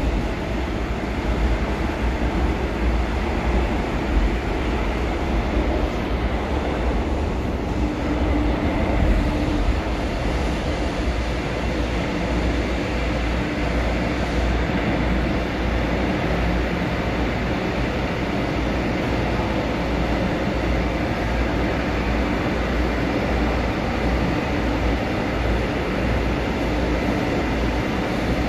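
São Paulo Metro Line 2 train heard from inside the car while running underground: a steady rumble of wheels on rail and running gear. A low hum swells briefly about a third of the way in and again near the end.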